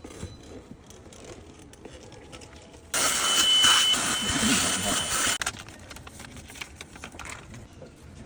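A hissing rush of air from a repair-bench blower or air tool, about three seconds in, with a thin high whine, lasting about two and a half seconds and cutting off sharply. Small tool clicks and taps come before and after it.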